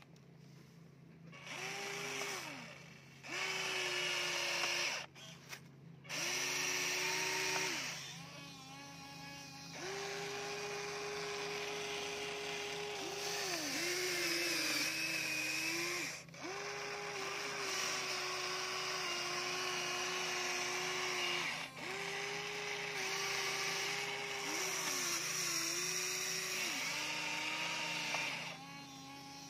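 Electric motors of a Huina radio-controlled toy excavator whining in repeated runs, each lasting one to several seconds and dipping briefly in pitch as it starts and stops, as the boom, arm and bucket move. A low steady hum runs underneath.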